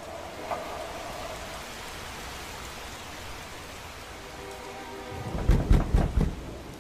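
Steady rain, then a thunderclap about five seconds in: a low rumble with several loud cracks over about a second.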